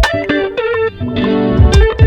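Instrumental beat: a plucked, guitar-like melody with sliding notes over deep kick drums and sharp snare hits, repeating as a loop.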